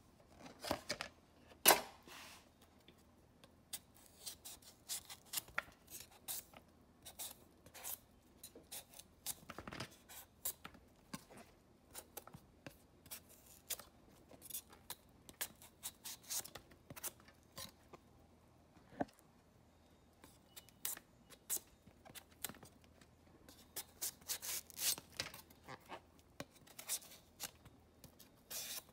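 Kitchen knife peeling and cutting a mango held in the hand: a steady run of short scraping and slicing sounds, with two sharp knocks near the start.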